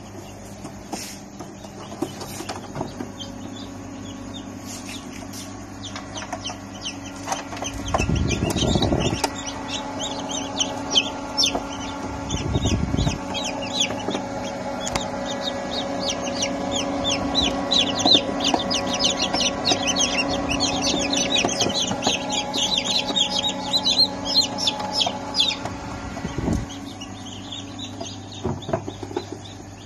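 Newly hatched chicks peeping inside an incubator: many short, high cheeps in quick succession that grow denser through the middle and thin out near the end. Under them runs a steady low hum, and two dull low thumps come in the first half.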